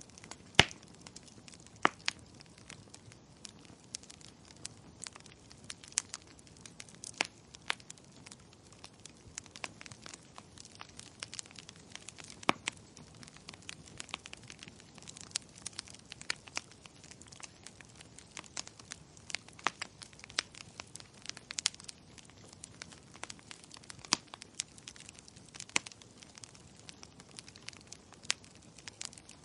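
Wood fire crackling: irregular sharp pops and snaps over a faint steady hiss, with the loudest pop about half a second in.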